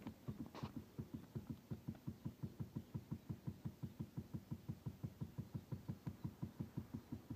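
Pipe-bursting head being pulled through an old sewer line, breaking up the old pipe as it goes, heard as a steady, rapid knocking of about six knocks a second.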